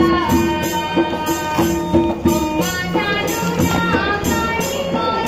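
Background music: a song with sustained melody notes and a regular beat of bright percussion hits.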